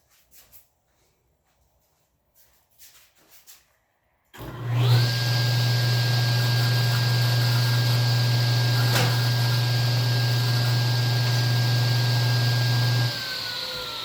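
Faint small handling knocks, then an electric motor is switched on about four seconds in. It runs at a steady speed with a low hum and a steady whine, and is switched off near the end, spinning down with falling pitch.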